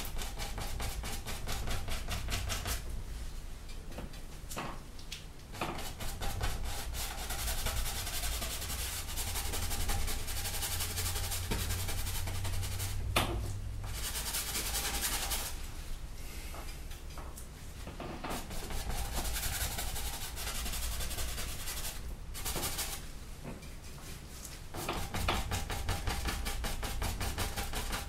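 A paintbrush scrubbing oil paint onto a stretched canvas in quick, short back-and-forth strokes, in runs with short pauses between them, over a low steady hum.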